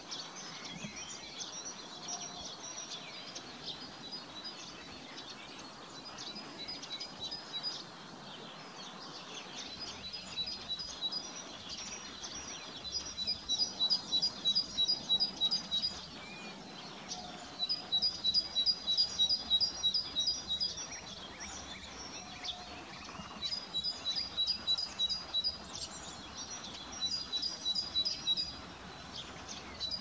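Bird song: loud, rhythmic bouts of two alternating high notes, about four phrases a second, each bout lasting two to three seconds with short pauses between. The bouts start about a third of the way in, over lighter chirping from other birds.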